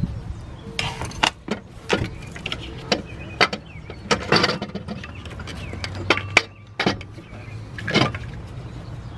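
Scattered metallic clinks and knocks, a dozen or so sharp clacks at uneven intervals, as the unbolted alternator of a 2000 Ford F150 is worked loose from its mount and the 10 mm bolts are handled.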